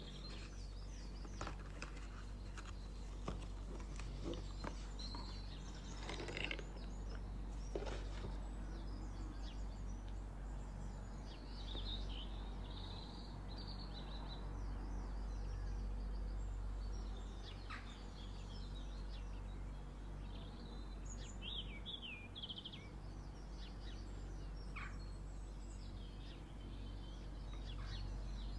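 Small birds chirping intermittently in the background over a steady low hum, with a few soft clicks and taps from handling a cardboard box and a glass perfume bottle.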